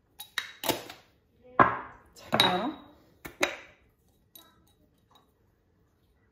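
Clinks and knocks of glass spice jars, a small bowl and a spoon being handled against the pans and the countertop while spices are added. There is a quick run of sharp clinks in the first few seconds, two of them louder with a short ring, then a couple of faint taps.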